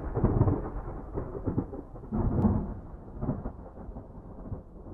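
Thunder rumbling in long rolls, swelling again about two seconds in, then fading away.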